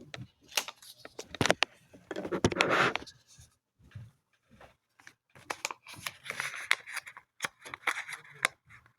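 Paper documents and box packaging being handled: rustling with scattered clicks and taps, a longer, louder rustle about two seconds in.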